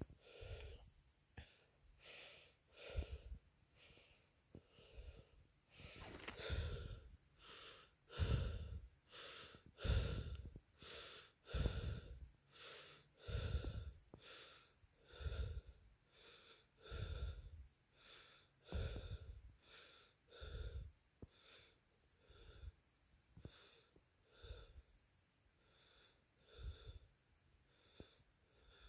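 A person breathing close to the microphone, a steady run of short breath sounds about two a second. They are loudest in the first half and fade somewhat toward the end.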